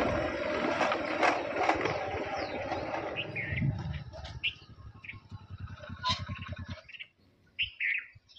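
Small commuter motorcycle riding up and slowing to a stop, its engine giving an even, rapid low putter after a loud rushing noise in the first half; the engine is switched off about seven seconds in. Birds chirp in the background.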